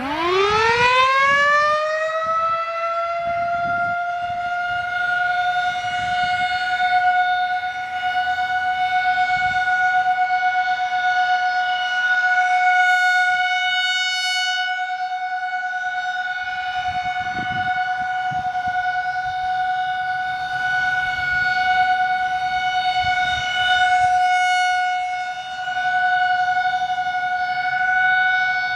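Federal Signal 2001-SRNB electromechanical outdoor warning siren winding up from a low growl to a steady high tone in about two seconds. It then holds its steady Alert signal, the level rising and falling slightly as the horn slowly rotates.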